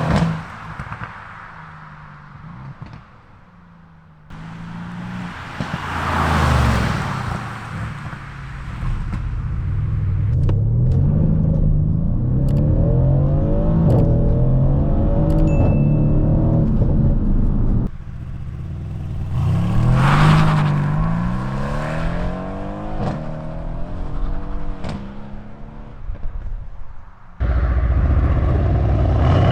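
Mercedes-AMG C63 W205's 4.0-litre twin-turbo V8 on its stock exhaust, in several shots: it passes by loudly about six seconds in and again about twenty seconds in, and in between the engine note rises and falls as it accelerates through the gears.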